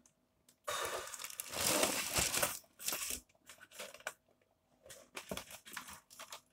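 A clear plastic bag crinkling and a cardboard box being handled, in rustling bursts through the first half, then only faint scattered rustles.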